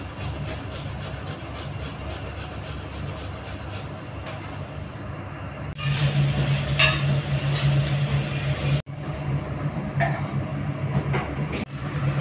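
A steady low machine hum that gets louder about six seconds in, with a few brief scrapes and knocks over it.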